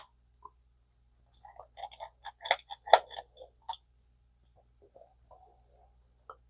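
Metal parts of an early-1960s Zebco spincast reel clicking and scraping as the back cover is fitted on by hand: a run of sharp clicks and taps through the middle, the loudest two about half a second apart, then faint scraping.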